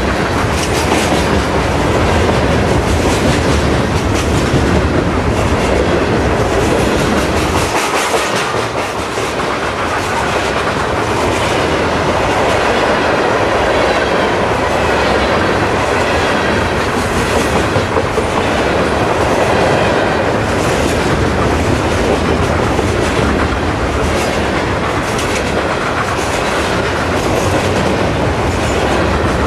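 Freight train of hopper cars rolling past: loud, steady rumble of steel wheels on rail with a clickety-clack as the wheels cross the rail joints.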